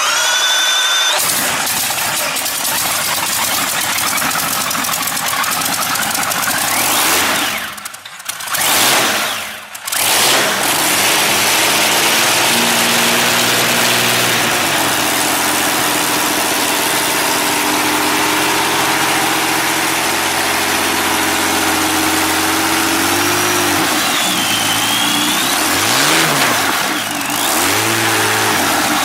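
An engine running loud and rough, nearly dying twice about eight and ten seconds in before picking up again. It then settles into a steady run whose pitch creeps up, dips and recovers near the end as the throttle is worked.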